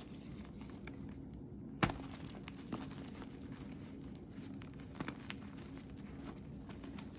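Reformed gym chalk being crushed and crumbled, giving scattered soft crunches and crackles, with one sharper snap a little under two seconds in.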